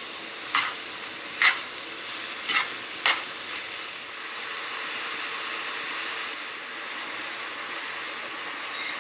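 Shredded cabbage, carrot and onion frying in a pan with a steady sizzle as the cabbage gives off its juice, and food being stirred. Four short sharp clicks come in the first three seconds.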